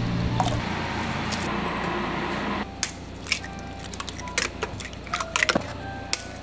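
Dark sauce pouring steadily from a bottle into a measuring scoop; about two and a half seconds in it stops abruptly. After that, eggs are cracked by hand into a plastic tub, giving a string of sharp shell cracks.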